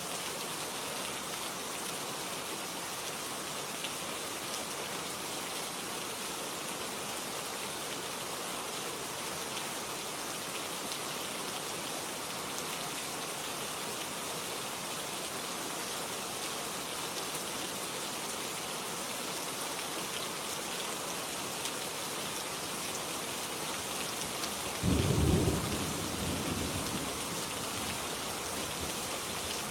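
Steady rain falling, with a short low rumble of thunder that breaks in suddenly near the end and dies away over a couple of seconds.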